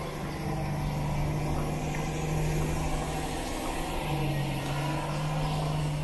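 A steady low motor hum, like an idling engine or a running machine, that drops out briefly about halfway through and then resumes.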